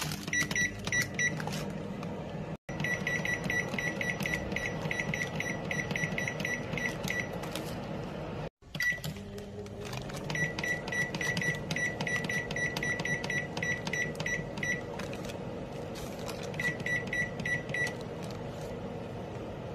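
Microwave oven keypad beeping as its buttons are pressed: quick runs of short, identical high beeps, about four a second, stopping and restarting four times, over a steady low hum.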